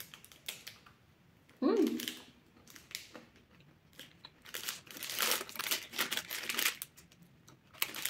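A short closed-mouth "mm" about one and a half seconds in. Later comes a stretch of sharp crackling, from about halfway to near the end, as the plastic snack-bar wrapper crinkles in the hands and the crispy, dark-chocolate-coated peanut protein bar is bitten and chewed.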